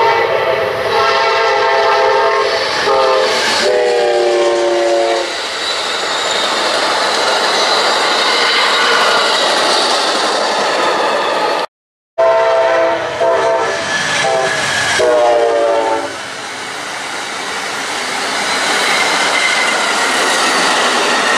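A freight train carrying highway trailers on flatcars rolls past, its wheels rumbling and clattering over the rails. A multi-note air horn sounds in two blasts during the first five seconds and again for a few seconds just after a brief dropout of all sound about halfway through.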